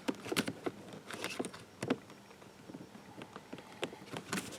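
Irregular small plastic clicks and taps as the locking tab of a wiring connector is pulled up and the connector is worked off the back of a car's window switch panel.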